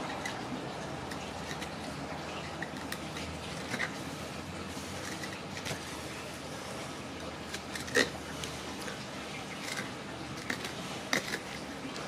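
Knife working a barramundi on a plastic board: faint scraping and handling with a few sharp clicks, the loudest about eight seconds in, over a steady background hiss.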